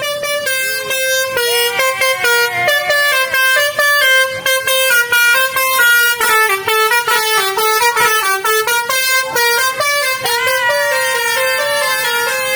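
Indonesian 'telolet' multi-tone bus horn playing a fast tune of short notes that step up and down in pitch, sounding without a break.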